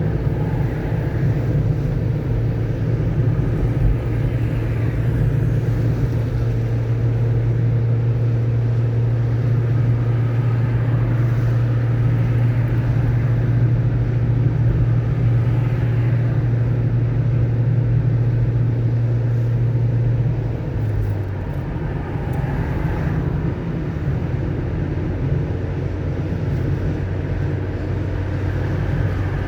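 Steady engine and road drone of a moving car, with a low hum that drops a little in pitch and gets slightly quieter about two-thirds of the way through.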